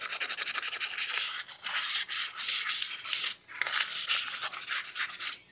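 1000-grit sandpaper rubbed by hand over a brake caliper housing around the piston bore, a dry scratchy hiss of quick back-and-forth strokes, cleaning off rust so the piston can move freely. It breaks off briefly twice and stops near the end.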